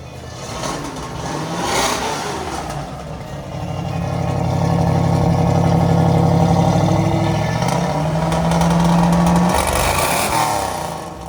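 Car engine being revved: quick blips, then held at raised revs for several seconds, climbing once more before dropping back, and another blip near the end.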